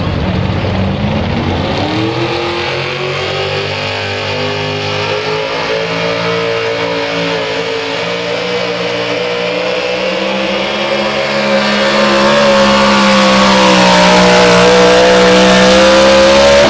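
Pulling truck's engine revving up as it launches against the weight sled about two seconds in, then held at high rpm under full load for the rest of the pull. It grows louder as the truck comes past, with the pitch sagging slightly and rising again near the end.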